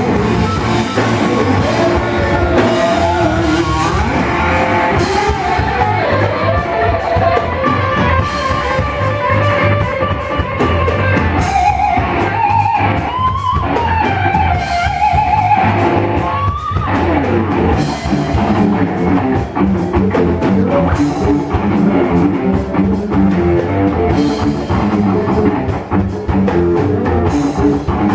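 Rock band playing: electric guitar and drum kit with a steady beat, and a lead line that slides up and down in pitch midway through.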